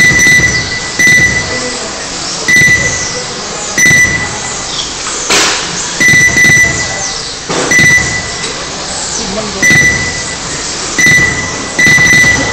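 Lap-counting timing system beeping as RC cars cross the timing line: about ten short, same-pitched beeps at irregular intervals, sometimes two close together, over the whir of 1/10-scale electric touring cars on the track. A sharp knock sounds about five seconds in.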